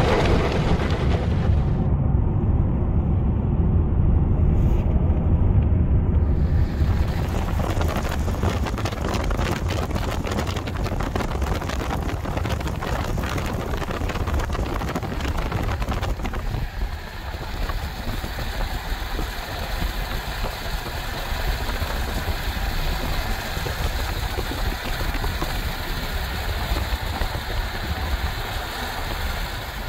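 Loud, steady rush of storm wind on the microphone, with no clear pitched sound in it; its character changes about halfway through.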